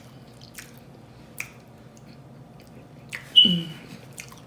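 Close-up mouth sounds of a person eating: scattered wet clicks of chewing and lip-smacking. About three and a half seconds in comes a louder, short voiced sound that falls in pitch.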